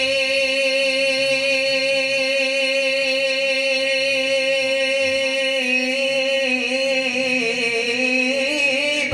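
A man singing a naat unaccompanied into a microphone, holding one long sustained note. About halfway through the note begins to waver in pitch with small ornaments before it ends.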